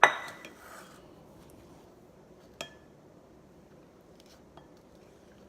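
A hard utensil strikes a mixing bowl with a sharp ringing clink that fades over about a second, followed by a second, smaller clink about two and a half seconds later.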